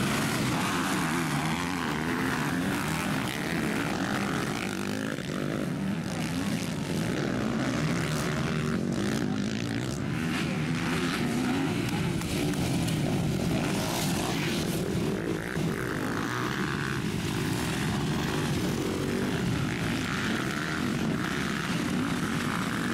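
A pack of MX2 motocross bikes racing together: many engines revving hard at once, the pitch wavering up and down continuously as the riders open and close the throttle through the turns.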